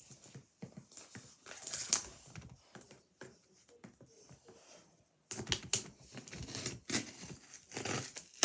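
Toy packaging being opened by hand: irregular crinkling, clicks and rustles of plastic and cardboard, pausing briefly about five seconds in, then resuming more densely.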